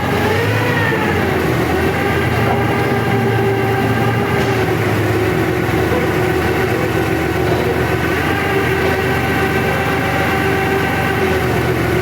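Sawmill machinery running steadily: an engine-like drone with a steady high whine. The pitch dips briefly and recovers about half a second in.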